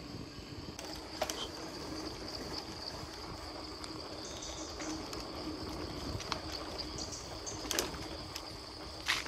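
Steady high-pitched insect chirring from the woodland over a low rumble of movement, with a few sharp clicks, one about a second in and two near the end.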